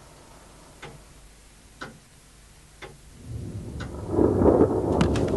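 A clock ticking about once a second, then from about three seconds in a loud rumble of thunder with rain swells up and drowns it.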